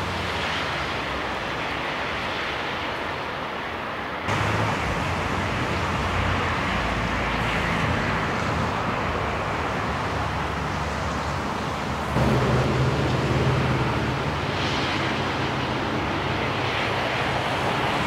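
Steady outdoor noise with a low rumble, no distinct event. It jumps abruptly louder about four seconds in and again about twelve seconds in.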